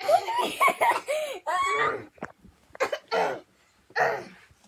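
Kids' voices: high, excited yelling and laughter for about two seconds, then a few short, separate vocal bursts with pauses between them.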